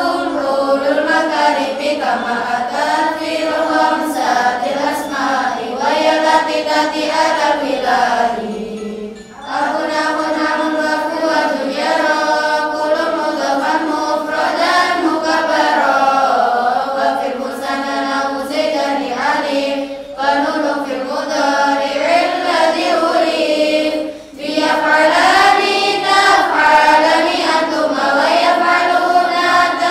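A large group of girls chanting Arabic grammar verses in unison to a sung melody: lalaran, the rote recitation of memorised nadhom. The singing breaks briefly about nine seconds in and again near twenty-four seconds, then resumes.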